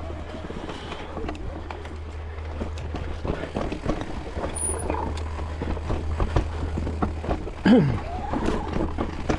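Electric mountain bike rolling down a dirt singletrack: tyres on dirt and the bike rattling over roots and bumps in many irregular knocks, over a steady low wind rumble on the microphone. A short vocal exclamation with falling pitch comes about eight seconds in.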